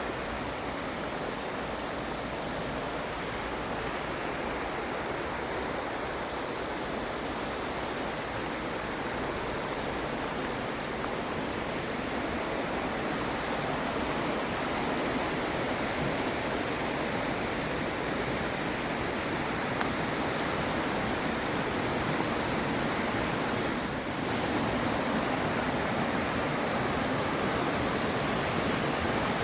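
Mountain stream water rushing steadily over rocks, a constant even rush with a brief dip about 24 seconds in.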